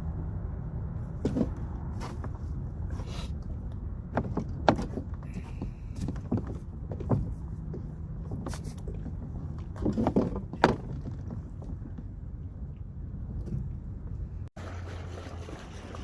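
Wind rumbling on the microphone with scattered knocks and clicks, about a dozen, bunched in the first ten seconds, with the loudest clustered near the middle and again toward the end of that stretch.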